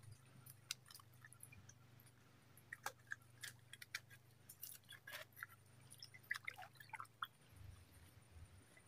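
Near silence with scattered faint clicks and small taps, most of them in the middle of the stretch, over a low steady hum.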